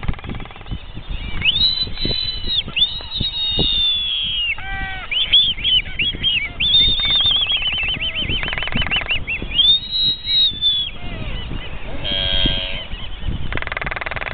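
Black-footed albatrosses calling in their courtship dance: a series of high, arching whistles and squeals, some in quick runs, with a rapid rattle about eight seconds in and a lower braying call near the end.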